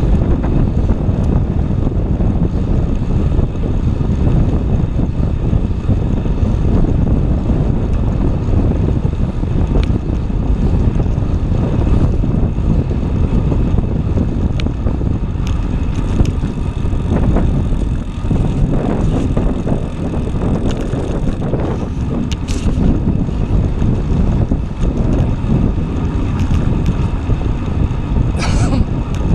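Wind buffeting the microphone of a bicycle-mounted camera while riding along an asphalt street, a dense steady rumble. A brief high squeal near the end.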